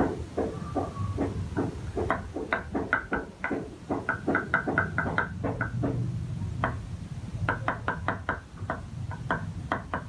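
Cleaver chopping garlic on a round wooden chopping board: a run of sharp knocks, several a second, coming faster in bursts.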